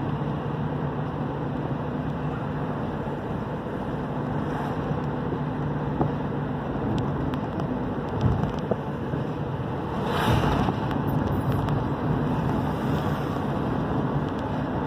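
Engine hum and road noise heard from inside a moving vehicle: a steady low engine note with constant rushing noise. The engine note shifts about eight seconds in, and a short louder rush of noise comes about ten seconds in.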